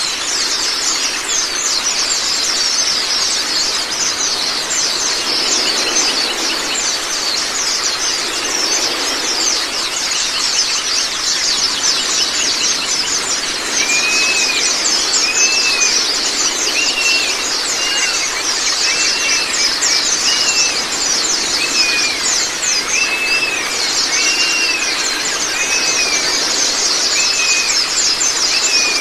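White-eyes (Zosterops) singing in a fast, dense, high twittering chatter over steadily running water. From about halfway, short arched whistled notes repeat roughly once a second over the chatter.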